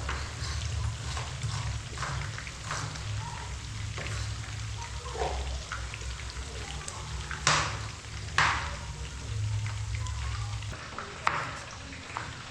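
Food frying in hot oil in a pan, a steady sizzle broken by scattered scrapes or stirring strokes, two louder ones about two-thirds of the way in. A low hum underneath stops near the end.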